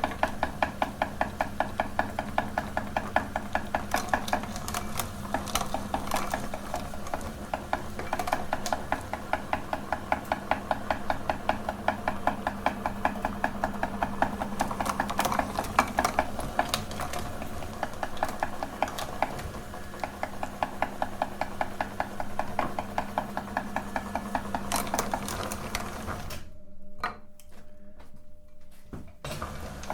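Electric meat grinder running with a steady motor hum and a fast, even clatter as chocolate bars are ground. The motor stops suddenly near the end, leaving a few clicks.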